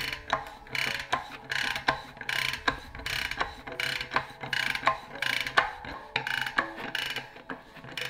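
Rapid ratcheting clicks from a bicycle's rear freehub pawls, coming in short bursts about once every three-quarters of a second as the cassette is worked back and forth with a chain whip.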